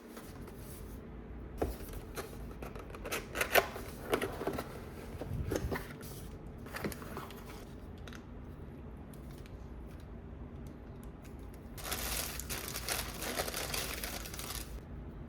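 Keyboard packaging being handled and opened: scattered taps, knocks and scrapes on the box, then a few seconds of paper or plastic crinkling and tearing near the end.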